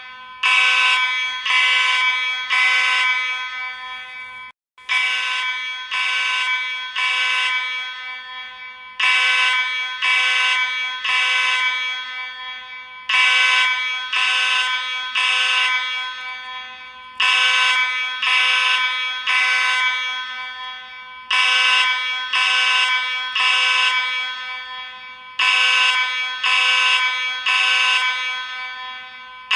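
Space Age AV32 fire alarm horn sounding the temporal-three evacuation pattern: groups of three short, buzzy blasts, with a new group about every four seconds.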